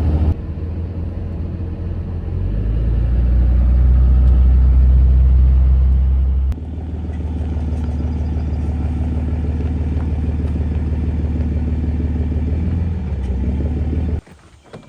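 Pickup truck driving along: a steady low rumble of engine and road noise. It swells about two seconds in, drops sharply about six and a half seconds in, then runs steady until it cuts off abruptly near the end.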